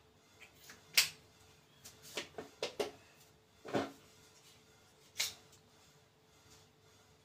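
Sharp clicks and taps of small neck knives and their hard plastic sheaths being handled and set down on a table: a loud click about a second in, a quick run of four or five clicks between two and three seconds, a fuller knock near four seconds, and one more click a little after five.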